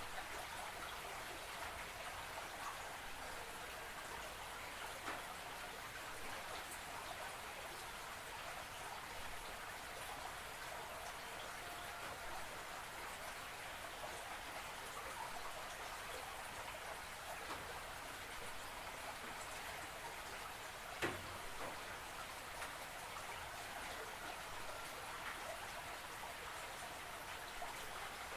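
Water of a small creek trickling and babbling steadily, a continuous splashing hiss with small drips and clicks, and one sharper tap about three-quarters of the way through.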